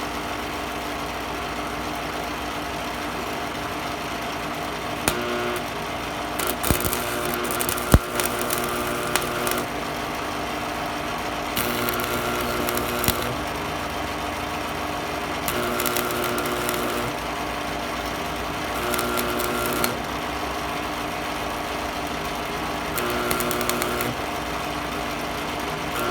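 Stick welding on thin metal with a Miller Thunderbolt 250 AC transformer welder: the machine's steady hum throughout, with about five short runs of arc crackle, each a second or two long, as the arc is struck and broken. The hum's pitch shifts while the arc is burning.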